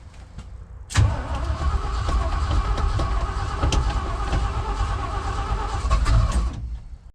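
The 1978 Ford F600's 391 V8 being cranked over by its starter, beginning abruptly about a second in and running for about five and a half seconds before stopping. The truck has sat for a long time and is reluctant to start, which the owner puts down to bad gas.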